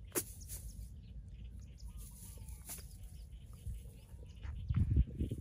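Chickens clucking, with small bird chirps over a low rumble; a sharp click just after the start and a loud low thump near the end.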